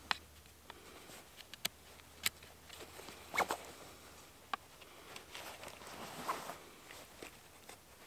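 A knife whittling a wooden stick: short scraping strokes as bark and wood shavings are cut off, mixed with a few sharp clicks.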